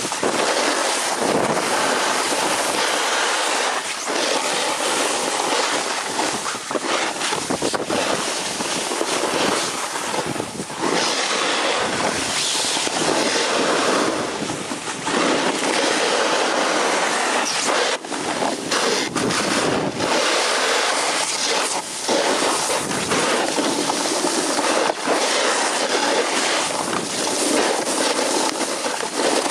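Wind rushing over the camera microphone, mixed with skis scraping and hissing over hard, wind-packed snow during a fast downhill descent. The rushing swells and dips with the turns, with brief lulls a little past halfway.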